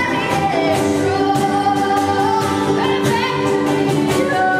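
A woman sings live, holding long notes, accompanied by an upright bass and a small acoustic string instrument.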